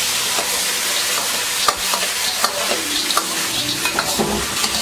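Diced chicken and vegetables sizzling steadily in a hot wok as the sauce reduces, with a metal ladle scraping and knocking against the wok; several sharp clicks from the ladle from about a second and a half in.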